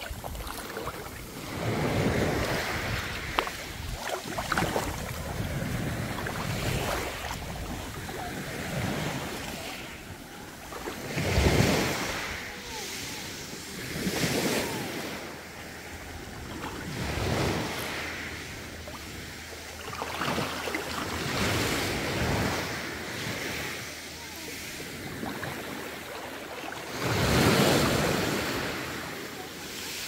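Small waves washing in at the edge of a pebble beach, surging and easing every few seconds.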